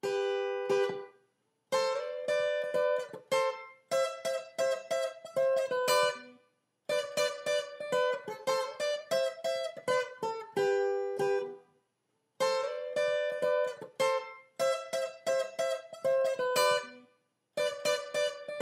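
Background music: a plucked string instrument picking a melody in short phrases, with brief pauses between them.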